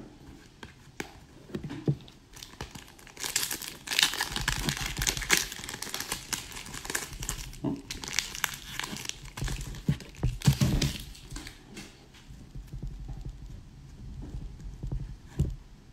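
Foil wrapper of an Upper Deck hockey card pack crinkling and tearing as it is opened, with light clicks of cards handled between fingers. The crinkling comes in spells, the longest starting about three seconds in, with another around ten seconds.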